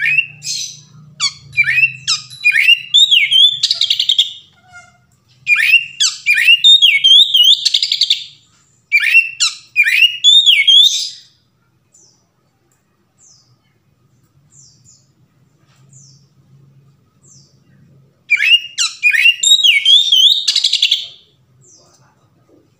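Male oriental magpie-robin (kacer) singing loud, varied whistled phrases full of rising and falling notes, in three bouts with a pause of several seconds in the middle: the full, open song that kacer keepers call ngeplong.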